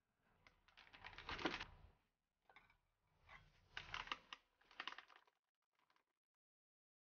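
Hand-operated metal flour sifter being worked over a stainless steel bowl: several short bursts of rapid clicking and rasping as the sifter's mechanism turns against the mesh and flour falls through.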